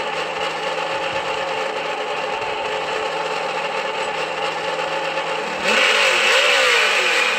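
Traxxas On Board Audio sound module in an RC truck playing a simulated engine idle through its small speaker, then about six seconds in jumping louder into a rev with the pitch sweeping up and down. The rev comes on by itself, without throttle input.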